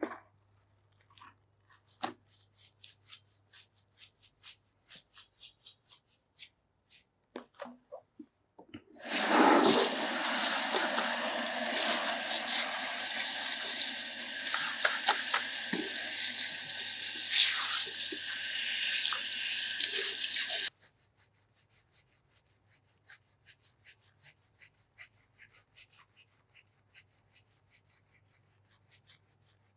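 Water from a shampoo basin's hand-held sprayer running over wet hair. It starts about a third of the way in and cuts off suddenly about twelve seconds later. Before and after it, faint scratching of fingers scrubbing wet hair.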